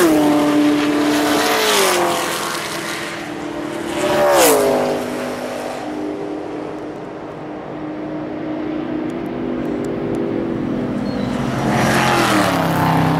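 Race cars passing at speed, each engine note dropping in pitch as the car goes by: one at the start, another about two seconds in, another about four seconds in and a last one near the end. In between, the engines of cars further round the track run at a steady pitch.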